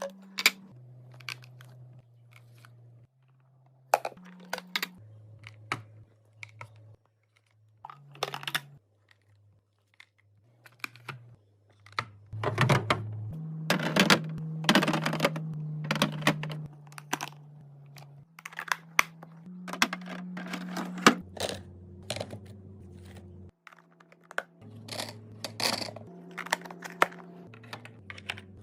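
Household items and packaging being handled for a restock: an irregular string of taps, clicks and rustling, with louder stretches of tearing or crinkling. Under it runs a low, soft tone that changes pitch every second or two.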